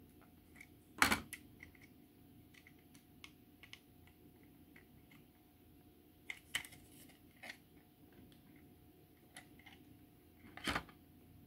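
Plastic parts of a Trumpeter F-14 Tomcat model kit being handled and pressed together by hand: scattered light plastic clicks and taps, with two louder knocks, one about a second in and one near the end.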